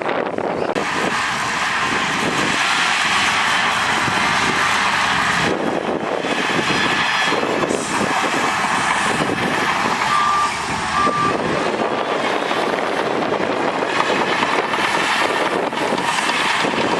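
Heavy earthmoving machinery running steadily under load, with a reversing alarm beeping two or three times about ten seconds in.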